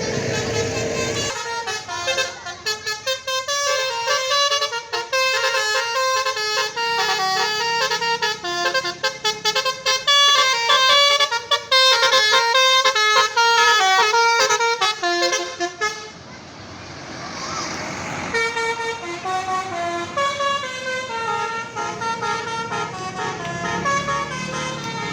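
Bus telolet horn, a multi-tone musical air horn fitted to an Indonesian bus, playing a fast melody of stepping honks; it stops about sixteen seconds in and starts a new run of tones a couple of seconds later. A bus engine rumbles under the first second.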